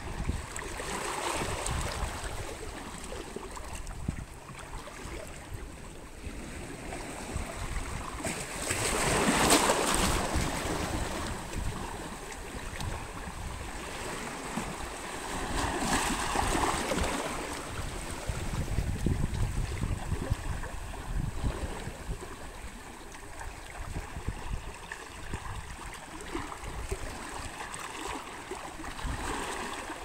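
Small sea waves washing in over shoreline rocks and breaking against them with splashing, in surges that swell and ebb every few seconds; the biggest breaks come about nine seconds in and again around sixteen seconds.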